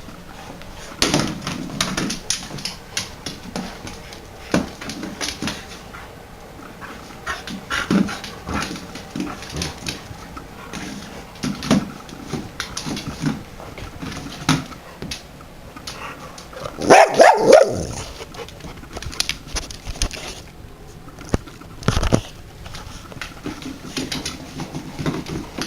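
Springer spaniels moving about: scattered clicks and knocks throughout, with a brief loud burst of dog vocalising about seventeen seconds in.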